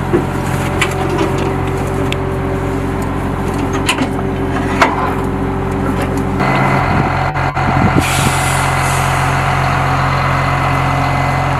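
Heavy truck's diesel engine running steadily, with a few sharp clicks and knocks. Its note shifts about six seconds in, and a hiss of air comes in about two seconds later.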